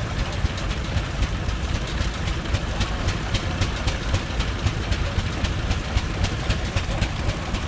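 Rumely OilPull tractor's slow-turning engine running at a steady, even exhaust beat as the tractor rolls along on steel wheels.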